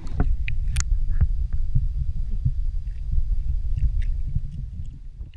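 Muffled, dense low rumble of water sloshing against a half-submerged action camera as a dog swims past, with irregular soft knocks. It fades out near the end.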